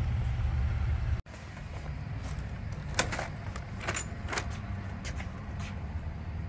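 Clicks and knocks of a large wooden double door's metal handle and latch being worked, then the door pulled open. Before that, a steady low rumble cuts off abruptly about a second in.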